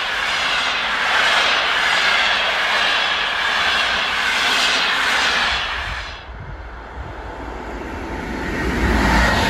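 Passenger coaches of an express train rushing past at speed, wheels and air noise with a repeating swish as each car goes by. About six seconds in the sound drops off abruptly, and another approaching train's rumble then builds steadily.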